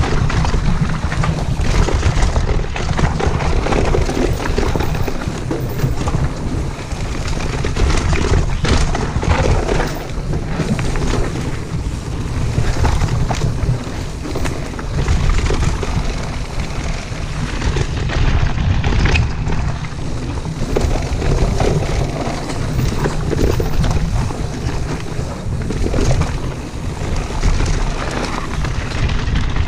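Wind buffeting a chest-mounted action camera's microphone on a mountain bike descending a dirt trail, a steady low rumble, with tyre noise and frequent knocks and rattles of the bike over bumps.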